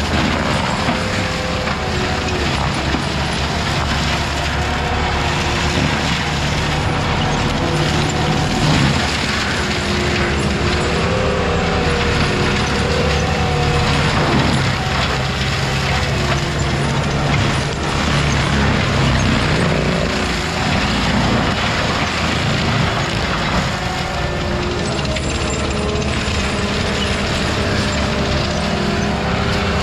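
A heavy equipment engine running steadily, working under load, its pitch drifting up and down.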